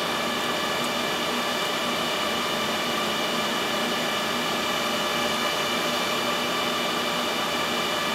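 Cooling fans of an HP ProLiant DL380 G4 server running steadily at power-on: an even rushing hiss with several fixed whining tones.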